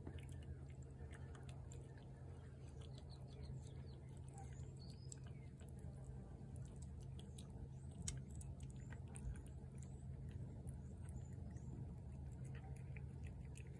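A cat chewing wet cat food from a plate: faint, irregular small wet clicks and smacks, with one sharper click about eight seconds in, over a steady low hum.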